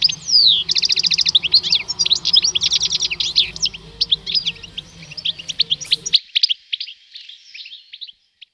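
Male European goldfinches singing: a fast, twittering song of rapid chirps and trills that thins out and fades away near the end.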